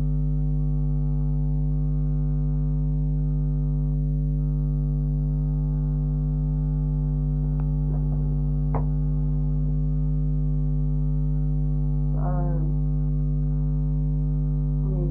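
Steady low buzzing hum made of several fixed tones, unchanged throughout. A brief vocal sound shows about twelve seconds in, and a faint click or two about eight seconds in.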